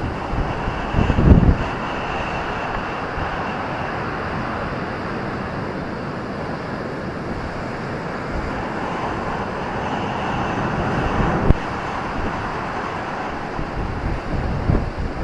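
Ocean surf breaking on a beach as a steady wash of noise, with wind buffeting the microphone about a second in and again near the end, and a single short knock a little past the middle.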